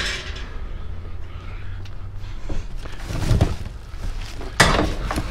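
Knocks and thuds of objects being handled, with one sharp bang about four and a half seconds in, over a steady low hum that stops about two seconds in.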